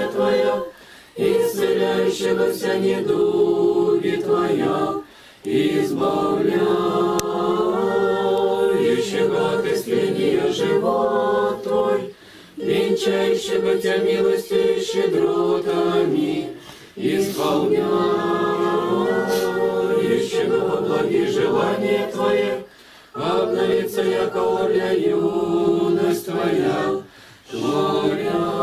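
A choir singing an unaccompanied Orthodox liturgical chant in long held phrases, with short breaks for breath between them about every five seconds.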